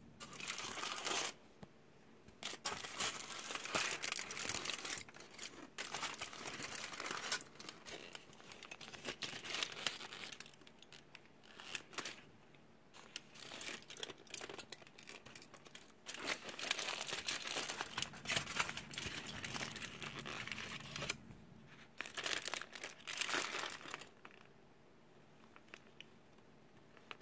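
Aluminium foil and a paper burger wrapper crinkling and crackling as they are unwrapped by hand, in several bouts a few seconds long with short pauses between. The crinkling stops a few seconds before the end.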